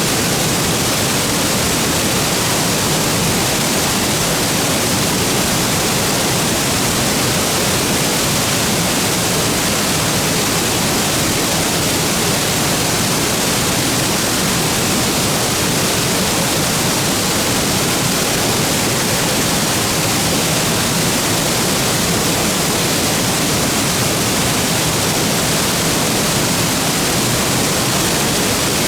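Shokei-daru waterfall pouring steadily: a loud, even rush of falling water with no breaks.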